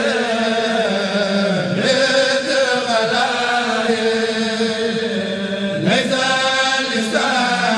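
Mouride religious chanting by a male voice in long, held, wavering phrases, with new phrases starting about two seconds in, about six seconds in and just after seven seconds.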